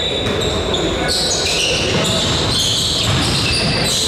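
Basketball game in a gym: a ball bouncing, short high sneaker squeaks and indistinct voices echoing in the hall.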